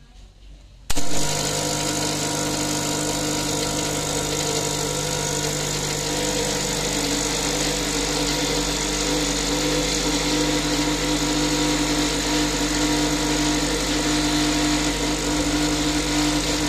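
Ascaso espresso machine's pump running steadily while it pulls a double espresso shot, a loud even hum that starts abruptly about a second in and cuts off near the end when the shot is finished.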